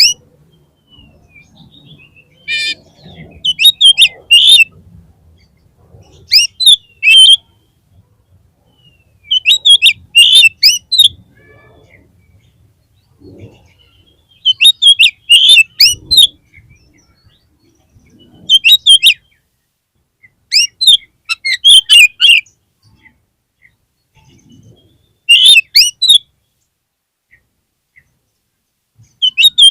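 Oriental magpie-robin (kacer) singing: loud, varied phrases of sweeping whistled notes, each a second or two long, repeated every few seconds with short pauses between.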